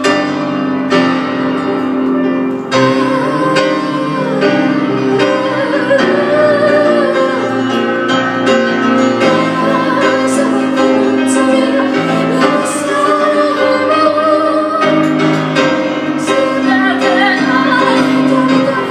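Grand piano played live with a woman singing over it, her long held notes carrying vibrato.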